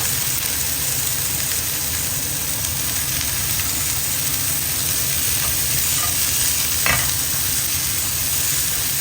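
Mixed vegetables sizzling steadily as they fry in a hot pan, stirred, with a few short knocks of the utensil against the pan; the loudest knock comes about seven seconds in.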